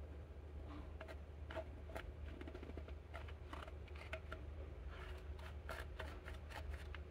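Pressed eyeshadow being crushed and scraped in its plastic palette with a small pointed tool: a run of faint, irregular scratches and crumbly clicks over a low steady hum.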